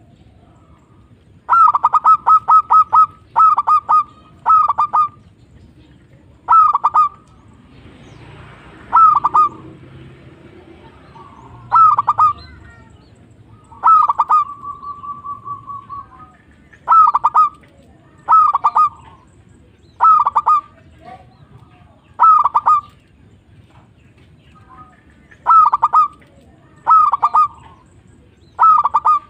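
Zebra dove (perkutut) cooing its song: short, clipped coo phrases repeated every couple of seconds, with one longer, drawn-out pulsing coo about halfway through.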